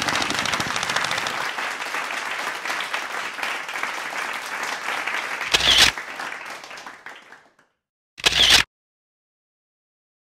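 Paintball markers firing rapidly on a speedball field, a dense crackle of overlapping shots that fades away over about seven seconds. Two short loud bangs stand out, about five and a half and eight seconds in, then the sound cuts to silence.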